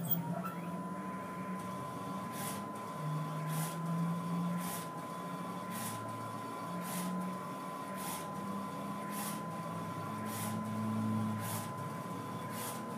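Full-colour powder-bed 3D printer running as its gantry travels over the powder bed: a steady high whine over a low hum. From about two seconds in there are short high swishes about once a second.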